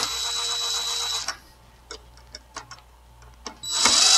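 Cordless drill driving in the screws of a dishwasher's cable strain relief clamp in two short runs. The first steady motor whine lasts about a second and a half at the start, and a shorter run comes near the end, with a few light clicks between.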